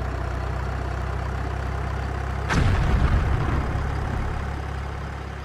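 Tank engine running with a steady low rumble, then a single tank cannon shot about two and a half seconds in, followed by a deep rumble that dies away. The engine sound fades toward the end.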